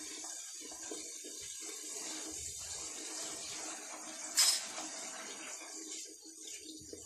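Tomato-onion masala sizzling in a metal pot as a spoon stirs it, with one sharp clink of the spoon against the pot about four and a half seconds in.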